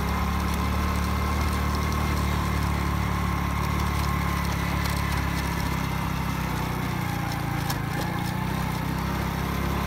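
Motorcycle engine running steadily while the bike is ridden along.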